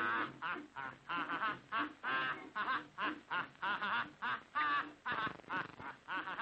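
Squawky, duck-like cartoon bird voice quacking in a rapid string of short syllables, about three a second.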